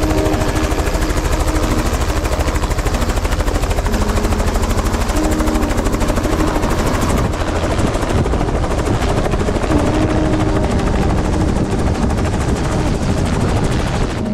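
Helicopter with a two-bladed main rotor coming in close and landing, its rotor beating loud, fast and steady.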